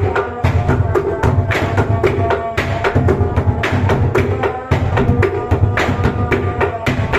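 Bedug, the large Indonesian mosque drum, beaten continuously in a fast rhythm: several sharp strikes a second over a deep low boom.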